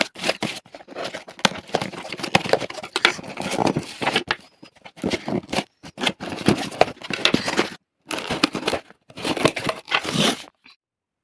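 Smartphone retail box being unboxed by hand: tearing, scraping and crinkling of cardboard and plastic wrap with many sharp clicks, in several bursts with short pauses, stopping shortly before the end.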